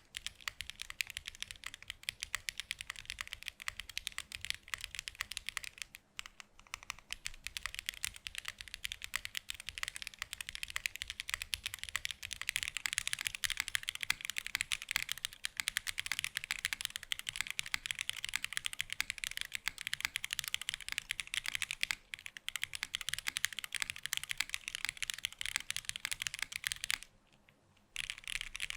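Rapid continuous typing on a custom 65% mechanical keyboard fitted with DM Nezuko switches and GMK keycaps, a dense stream of key clacks. It breaks off briefly about six seconds in, and again for about a second near the end.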